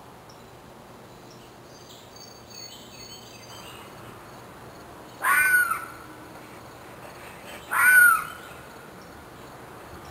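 Two loud harsh calls from an unidentified woodland animal, about two and a half seconds apart, each arching up and then down in pitch. The first is longer than the second.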